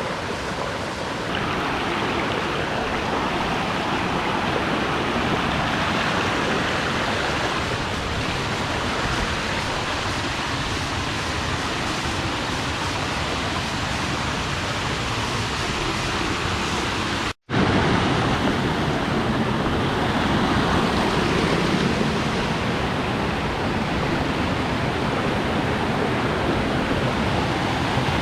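Steady rush of flowing water, broken by a split-second cut about two-thirds of the way through.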